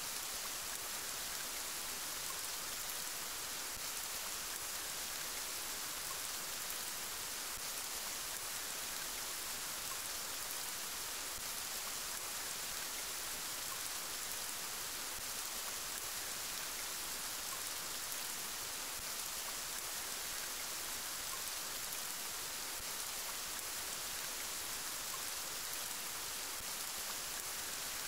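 Steady rain falling: an even, bright hiss of many drops that holds constant throughout.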